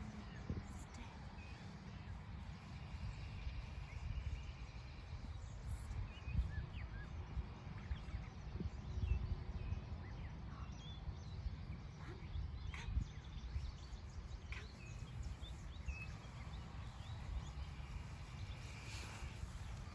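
Wind noise on the microphone, a low fluctuating rumble, with scattered short bird chirps in the background.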